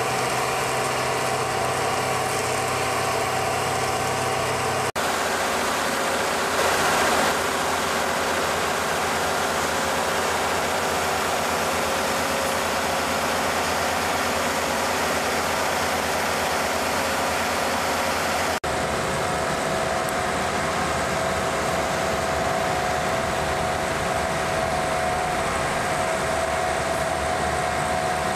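Dry batch concrete plant machinery running: a loud, steady industrial drone with a few held tones. Its character changes abruptly twice, about 5 and 19 seconds in, and there is a brief louder surge around 7 seconds.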